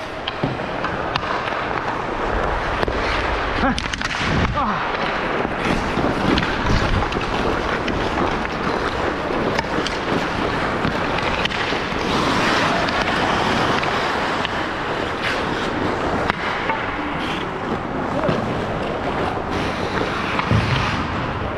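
Hockey skate blades scraping and carving on the ice, with sticks and puck clacking and a few sharper knocks against the boards.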